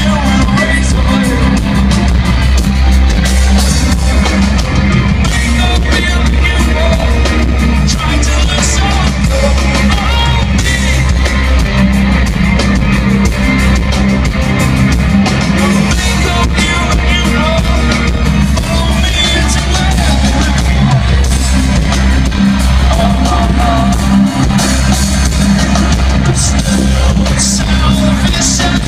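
Rock band playing live: electric guitar, keyboards, drums and a singing voice, loud and bass-heavy as heard from inside the crowd through a phone's microphone.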